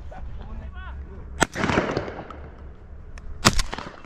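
Two shotgun shots about two seconds apart, fired at doves in flight; the first is followed by a short rolling tail.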